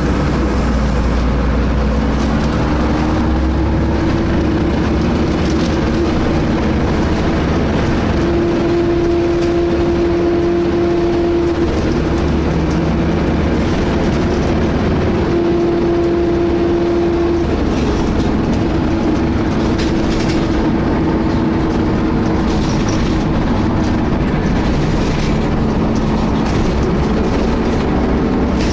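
Steady whine from a DAF-chassis Alexander ALX300 single-decker bus under way, over the engine and road rumble, swelling louder twice in the middle. The uploader likens it to a whining cooling fan but does not know its cause.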